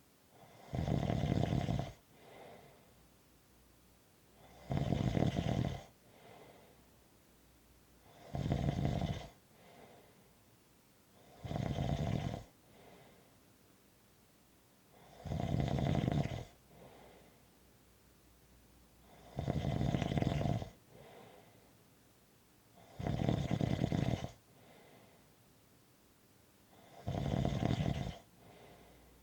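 Slow, regular snoring: eight rasping snores about a second long, one every three and a half to four seconds, each followed by a softer breath out.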